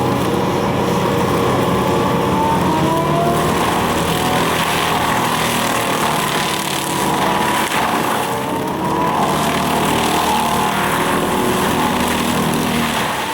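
Excavator-mounted Seppi Star FC hydraulic mulcher working: steady machine noise from the excavator and the spinning mulcher rotor, with a whine whose pitch rises and falls as the load changes.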